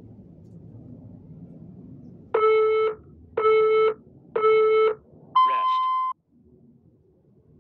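Interval workout timer counting down with three short beeps about a second apart, then one longer, higher beep that marks the end of the work interval.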